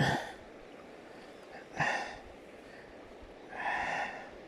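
Water splashing in three short bursts as a hooked brown trout thrashes at the landing net.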